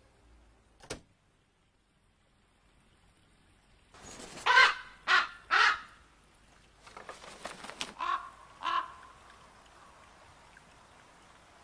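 Ravens calling: three loud, harsh calls in quick succession, then a stretch of rustling, then two more calls. There is a single sharp click about a second in.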